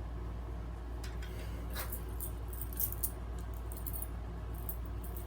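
A ring of keys jangling in the hand, a scatter of light metallic clinks starting about a second in, as the keys are sorted through in search of a CAT 45 fire alarm reset key.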